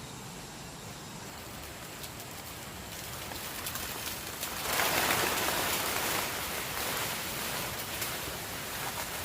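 Rain falling, a steady patter that grows louder and heavier a little over halfway through.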